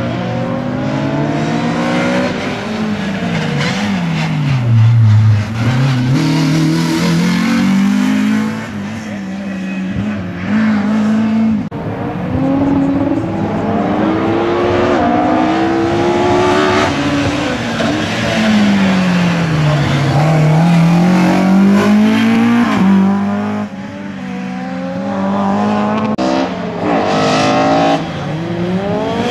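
A racing car's engine running hard on a slalom course, its pitch climbing under acceleration and dropping back again and again as the car brakes and turns between the cones.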